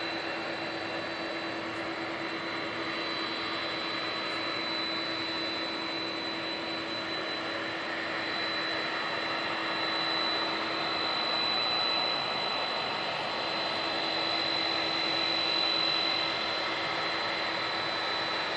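Boeing 767-300ER jet engines running at low power while taxiing, a steady rush with a high steady whine, growing slightly louder in the second half as it draws closer.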